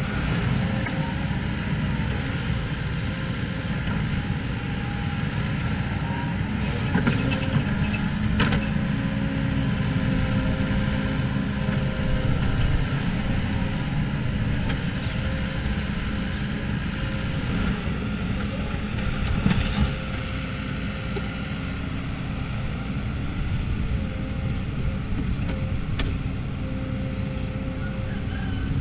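Kobelco SK75 excavator's diesel engine running steadily while the machine works, with a few short knocks about a third of the way through and again about two-thirds through.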